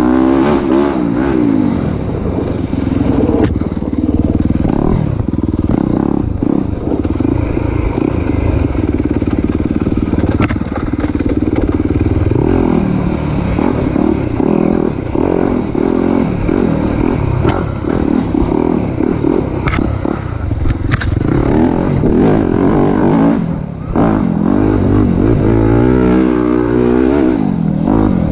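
Dirt bike engine revving up and down constantly as the rider works the throttle over a rough, rocky woodland trail, with scattered knocks and clatter from the bike over the ground. The engine note drops away briefly about three-quarters of the way through, then picks up again.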